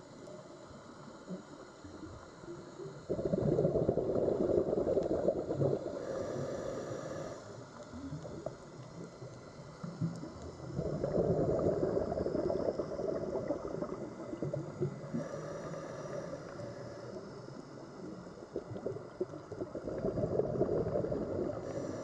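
Scuba diver's regulator underwater: three bubbling bursts of exhaled air, each a few seconds long and about eight seconds apart. Between them a fainter hiss of inhaling through the regulator.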